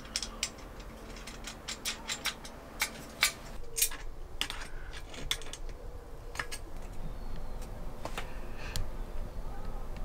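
Irregular metallic clicks and clinks of small hardware: steel washers and a nyloc nut being threaded onto the stud of an adjustable foot through an aluminium mounting rail, then tightened with a spanner.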